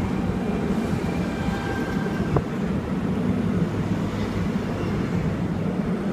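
Sydney Trains Tangara electric multiple unit running through the station without stopping: a steady rumble with faint steady tones above it, and a single sharp knock about two and a half seconds in.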